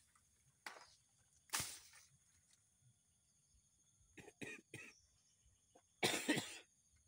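A person coughing in short bursts: one sharp cough about a second and a half in, three quick ones past the middle, and the loudest, longest near the end.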